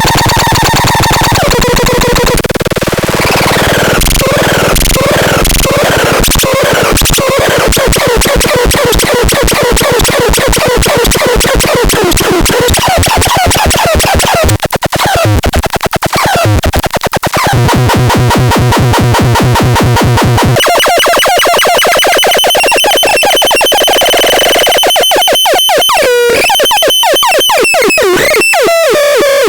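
Ultra Tanz electronic noise synthesizer making harsh, shifting noise: buzzing tones, long stretches of rapid clicking pulses and wobbling pitch sweeps that change abruptly every few seconds, with a low pulsing hum about two-thirds of the way through.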